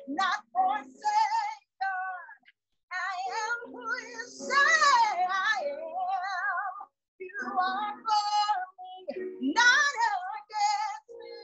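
A woman singing a gospel worship song in full voice, with strong vibrato and sliding runs, over steady held accompaniment chords.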